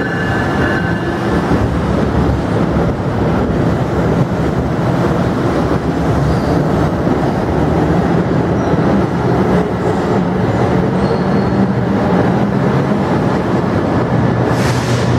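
New Jersey Transit multilevel commuter coaches rolling past a platform: a steady loud rumble of wheels on rail under a low hum. A high squeal fades out in the first second or two, and a brief hiss comes near the end.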